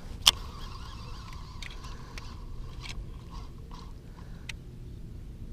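Baitcasting reel on a cast: a sharp click as the cast begins, then the spool spinning with a steady whine for about two and a half seconds. After that come light ticks as the reel is cranked to bring the swim jig back.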